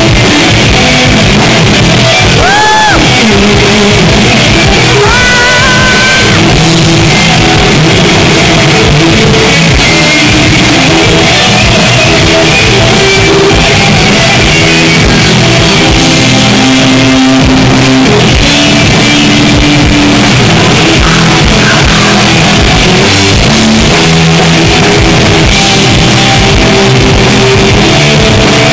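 Rock band playing live at very high volume, electric guitar to the fore, with shouted vocals. A few guitar notes are bent upward in the first six seconds.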